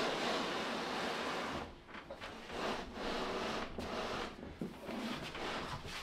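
A fridge being pushed and slid across a tiled floor into a tight cabinet opening, scraping in two long pushes, then rubbing more faintly in shorter shoves.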